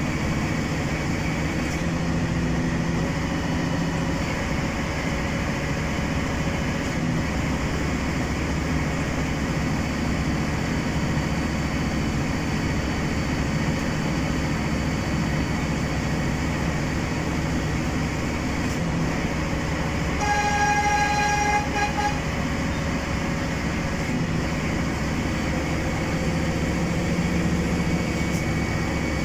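Steady running rumble of a passenger train, heard from inside a carriage. About two-thirds of the way through, a train horn sounds one held note for about a second and a half.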